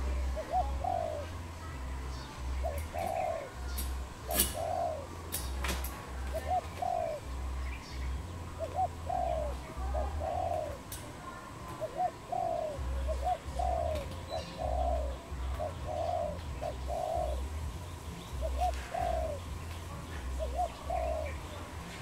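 Spotted dove cooing: short phrases of several low coos, repeated every second or two. Two sharp clicks about four and a half and five and a half seconds in, over an on-and-off low rumble.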